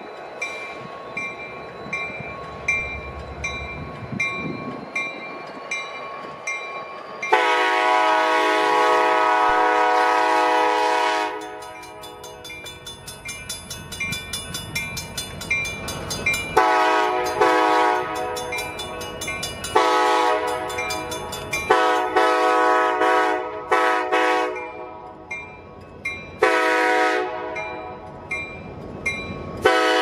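Kansas City Southern SD70MAC diesel locomotive horn sounded for a grade crossing. About seven seconds in comes one long chord of about four seconds, then a run of shorter, broken blasts, and a new blast starts near the end. A crossing bell rings steadily with even strokes underneath, over the locomotives' engine rumble.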